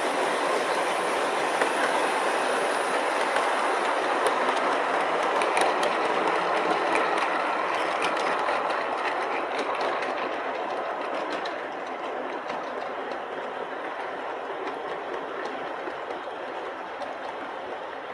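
O-scale model passenger cars rolling past on 2-rail track: a steady rumble of metal wheels on rail with scattered light clicks over the rail joints. The sound fades over the second half as the train moves away.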